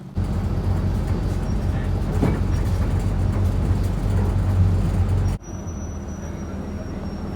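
Bus engine running with a steady low drone. About five seconds in the sound cuts off abruptly to a quieter stretch of the same kind of drone, with a thin high whine over it.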